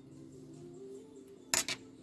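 Two quick sharp clicks about one and a half seconds in, a small hand tool set down on the workbench, over faint background music.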